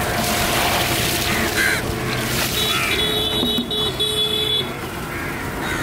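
Outdoor street ambience over a constant wash of noise, with a vehicle horn held for about two seconds midway.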